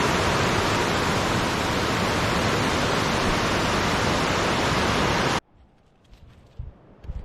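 Loud, steady rushing noise with an unsteady low rumble, such as wind buffeting the microphone or fast water close by. It cuts off abruptly about five seconds in, leaving near-quiet with a few soft low thumps.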